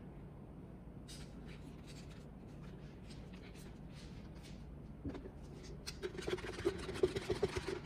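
Quick, repeated scratching strokes of something rubbing against a surface, growing denser and louder from about five seconds in, over a low steady hum.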